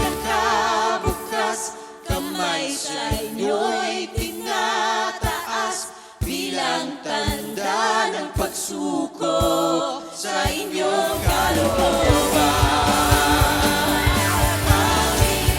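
Live church worship band playing a Christian song: voices singing with vibrato over a drum beat about once a second. About eleven seconds in, bass and the full band come in under the singing.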